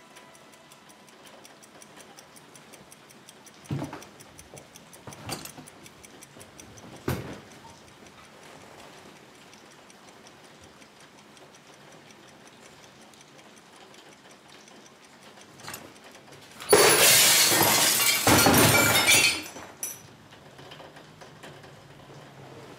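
A loud crash of a heap of books and other objects falling onto a wooden floor, in two rushes lasting about three seconds near the end. It comes over a quiet room with a clock ticking, after a few single knocks earlier on.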